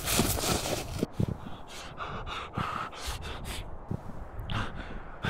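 A young man panting hard and out of breath, a quick run of short gasping breaths. His feet brush through dry grass in the first second.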